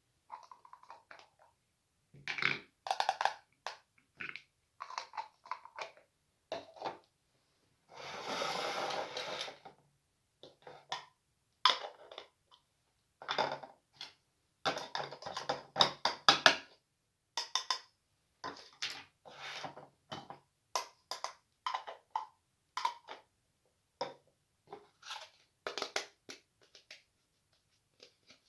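Small plastic toy kitchen pieces being handled and set down: irregular clicks, taps and rustles. About a third of the way in there is a steady hiss lasting about two seconds.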